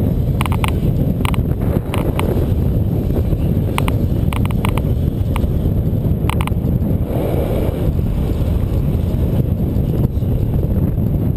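Wind buffeting the microphone of a camera on a moving bicycle, a steady low rumble, with scattered pairs of short sharp clicks during the first six seconds or so.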